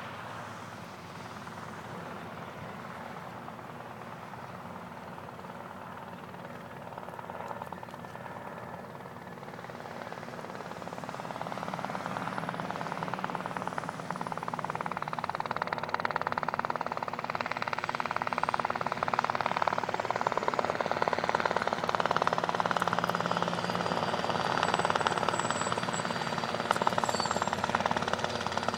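Robinson R22 helicopter approaching, the chop of its two-bladed rotor and its engine growing steadily louder as it comes nearer.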